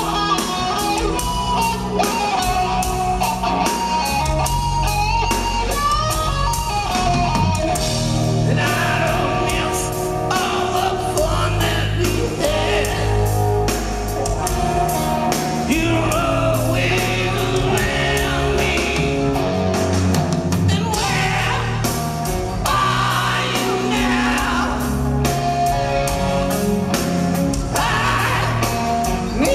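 Live rock band playing: drum kit, bass and electric guitar, with a man's lead vocal coming in about eight seconds in and going on over the band.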